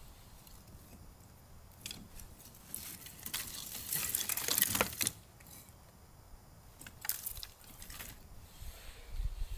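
Dry twigs rustling, crackling and snapping as a hand pushes and arranges kindling in a stone fire pit. The densest, loudest crackling comes a few seconds in, with two shorter rustles later.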